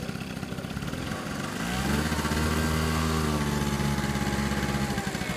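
A motor vehicle's engine running nearby over a low steady hum. It swells up about a second and a half in, holds a steady note for a few seconds, then eases off near the end.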